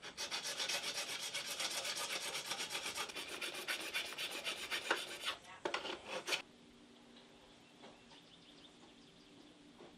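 Hand file rasping back and forth on the soft white-metal dropout slots of a Manitou suspension fork, widening them for an electric hub motor's axle. Quick, even strokes for about five seconds, a short pause, a few more strokes, then the filing stops a little past halfway through.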